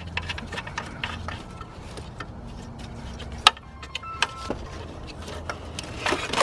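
Scattered light clicks and knocks of gloved hands and a tool working at the alternator's wiring connector and terminal, with one sharp click about three and a half seconds in, over a steady low hum.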